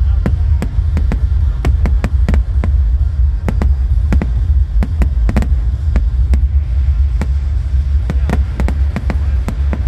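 Fireworks display: aerial shells bursting in an irregular series of sharp bangs, a few each second, over a steady deep rumble.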